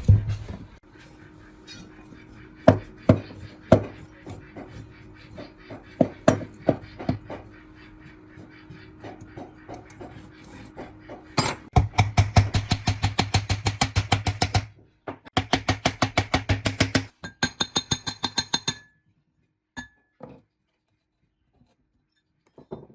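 Hand-tool work on the metal parts of an old electric water pump: scattered sharp knocks, then three runs of rapid, even strokes, about eight a second, that stop abruptly near the end.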